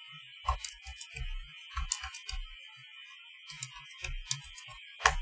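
Typing on a computer keyboard: irregular keystrokes in short runs with pauses, a few to several clicks a second.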